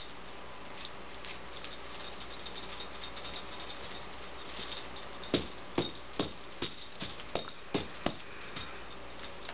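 A cat wand toy being flicked rapidly: about nine sharp swishing hits, roughly two a second, starting about five seconds in after a stretch of quiet room noise.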